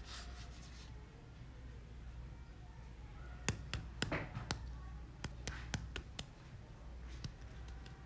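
A scatter of short, sharp clicks and taps, about fifteen, most of them between three and a half and seven and a half seconds in, over a low steady hum.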